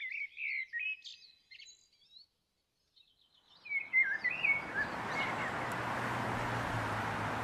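Small birds chirping in short, quick phrases, with a gap of about a second in the middle. From about four seconds in, a steady noise with a low hum comes in and carries on under the last calls.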